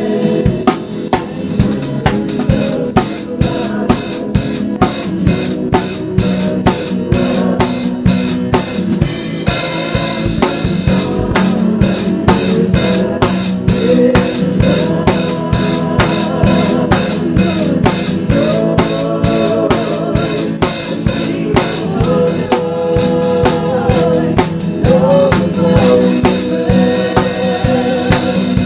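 Live worship band music: a Pearl drum kit keeping a steady beat of sharp snare and cymbal hits under sustained organ chords.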